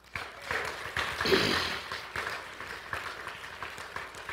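Congregation applauding, swelling quickly to a peak about a second and a half in and then thinning out.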